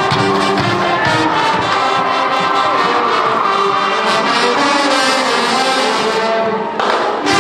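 School pep band playing, brass carrying the tune in held notes, with a brief break near the end.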